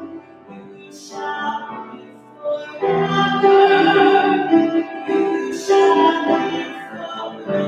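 A hymn sung with instrumental accompaniment, getting louder about three seconds in.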